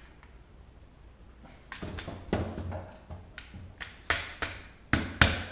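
Metal tools and the parts of a G&G M4 airsoft rifle being handled, with several sharp taps and clicks from about two seconds in, the loudest near the end, as a pin is worked with a punch.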